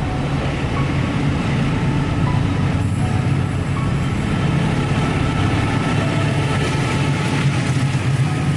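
Train passing, a loud steady rumble with a few faint short high-pitched squeals over it.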